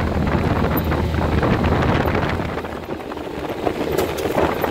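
Polaris RZR side-by-side driving over a dirt track: the engine runs with wind noise on the microphone, then eases off about three seconds in. A few knocks and rattles come near the end.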